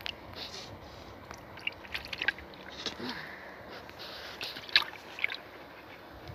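Water sloshing and splashing in a plastic bucket as a hand moves among live caught fish, a run of short, irregular splashes with the sharpest about three-quarters of the way through.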